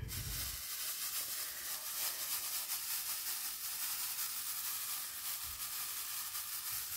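A tray full of tiny resin diamond-painting drills being shaken: a steady, dense rattle of countless small beads skittering against each other and the tray.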